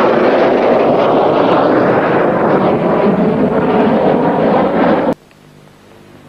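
Aircraft flying overhead: a loud, steady engine rush mixed with wind on the microphone. It cuts off suddenly about five seconds in, leaving faint steady tones.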